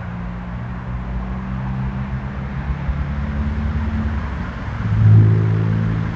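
A low engine hum with steady pitched tones, growing louder over the seconds and swelling most about five seconds in.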